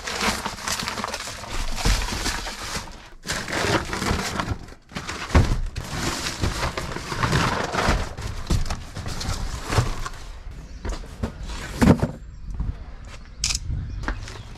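Rustling handling noise with scattered knocks and thuds, stopping and starting in short stretches.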